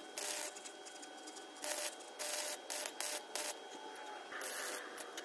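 A series of short, harsh scraping or rubbing strokes, several in a row at irregular intervals.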